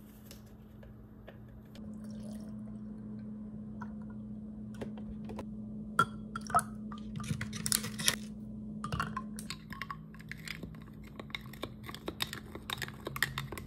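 A spoon and ice cubes clinking against a drinking glass as milk is poured in and an iced hojicha latte is stirred, in a run of sharp clicks from the middle on. A steady low hum sits underneath.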